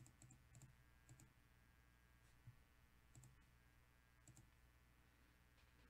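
Near silence with several faint, scattered computer mouse clicks over a low steady hum.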